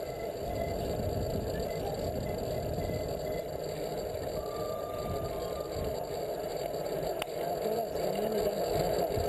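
Wind and road noise on a bicycle-mounted action camera while riding on asphalt: a steady, dull rush, with the sound sitting low.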